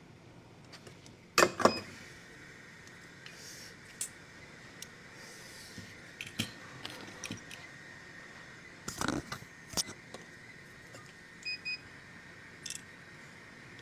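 Scattered clicks and light metallic knocks of small parts and tools being handled. The loudest come about one and a half seconds in and again around nine seconds in, over a faint steady high hum.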